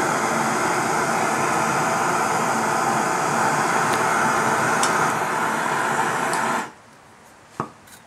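Gas torch firing into a small gold-melting furnace with a steady loud hiss, heating molten gold and borax flux, which stops abruptly near the end. A few light metal clicks of tongs at the crucible come before it stops, and a single sharp knock follows.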